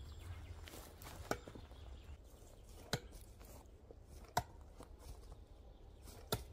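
Small steel drill bits thrown one after another, striking a wooden stump target: four sharp knocks about a second and a half apart, the middle two the loudest.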